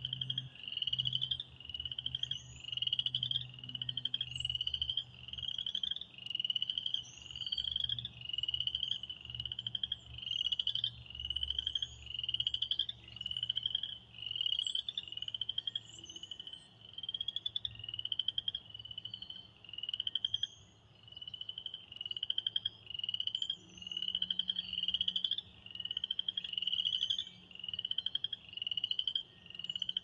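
Spring peepers calling from a flooded woodland pool: short, high, rising peeps repeating about once a second from the nearest frog, with fainter peepers overlapping behind.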